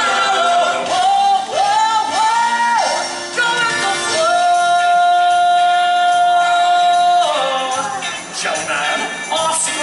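A song from a stage musical: a voice sings over backing music. The voice bends through a few short phrases, then holds one long steady note for about three seconds.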